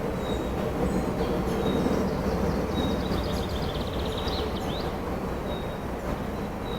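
Steady wind rushing through a forest. Over it, a bird repeats a short high note about every second, and a second bird gives a quick chattering trill around the middle.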